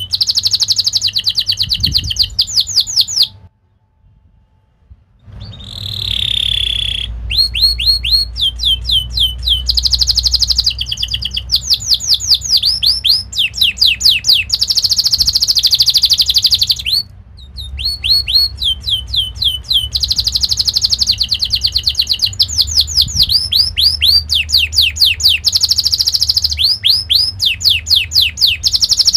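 Domestic canary singing fast rolling trills of rapid, repeated chirps. The song breaks off for about two seconds a few seconds in, resumes with a drawn-out sliding note, and pauses again briefly near the middle.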